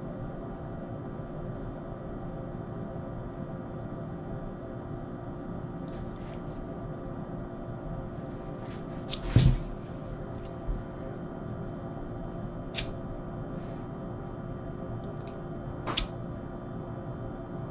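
Steady hum with a few sharp clicks and one louder knock about nine seconds in: small handling sounds while cut paracord ends are melted and pressed flat.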